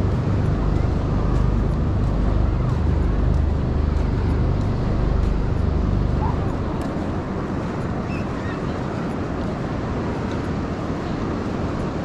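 Beach ambience: a steady wash of ocean surf with a deep wind rumble on the microphone that eases about halfway through, and faint voices of people on the sand.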